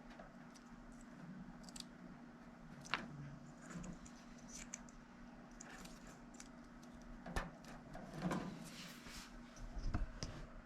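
Faint clicks, rattles and rustles of wires and small tools being handled as blower-motor leads are connected, over a low steady hum.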